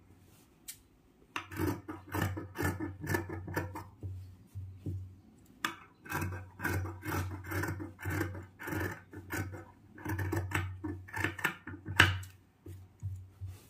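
Tailor's scissors snipping through cotton kurti fabric in quick runs of cuts, with pauses between runs and one sharper snap near the end. They are trimming the seam allowance of a stitched neck facing down to half an inch.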